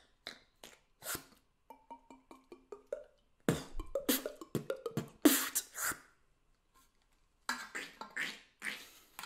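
Beatboxing mouth sounds: sharp clicks and pops, a rapid pulsing buzz about two seconds in, and a quiet pause before a last burst near the end.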